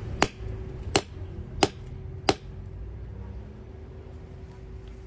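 Shoe repairer's small hammer tapping at a sneaker: four sharp taps about two-thirds of a second apart, stopping about two and a half seconds in.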